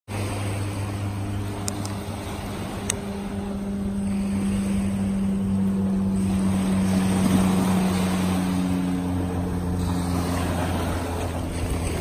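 A low, steady motorboat engine drone over small waves washing onto the beach.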